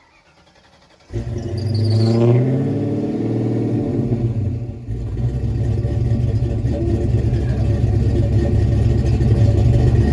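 Ford Mustang 5.0 V8 starting up about a second in. Its revs flare up and settle, then it runs with a steady low rumble.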